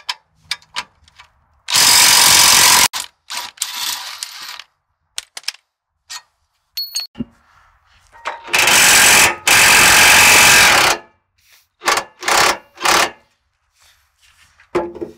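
Cordless impact wrench hammering the rear shock absorber's mounting bolts loose. A run of about a second comes near two seconds in and a longer run of about two and a half seconds comes around the middle, with shorter bursts between and after.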